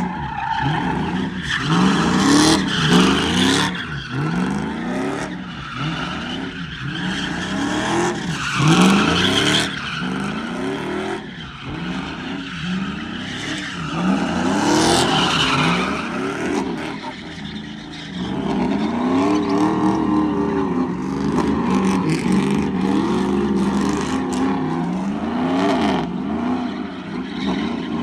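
Pickup trucks spinning donuts on asphalt: engines revving up and falling back again and again, with tyres screeching in a cloud of tyre smoke.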